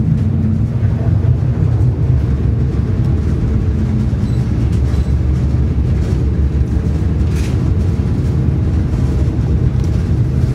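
Steady low rumble with a faint hum inside a moving aerial cable car cabin.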